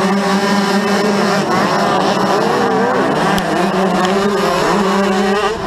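Motocross bike engines held at high revs on the start line, then the pack launching: from about a second and a half in the engine notes climb and drop in pitch as the bikes accelerate away and shift gears.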